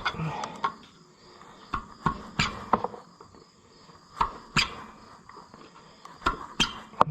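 Carbide scraper scraping hardened old gasket material off an engine's metal gasket surface: short, sharp, irregular strokes in little clusters, with pauses between them.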